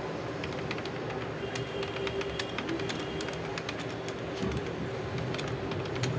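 Background noise picked up by a phone's microphone: a steady hum with many scattered short, sharp clicks.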